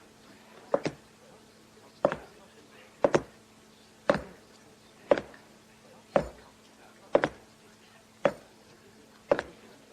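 A series of sharp knocks or blows at a steady pace of about one a second, several with a quick second hit right after, from a sound-effects recording of combat.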